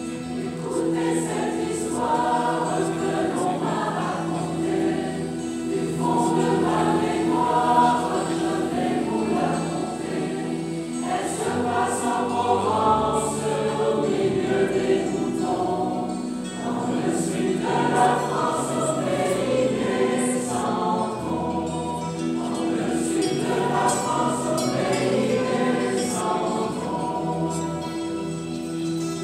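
Mixed choir of men's and women's voices singing part of a medley, with long held notes.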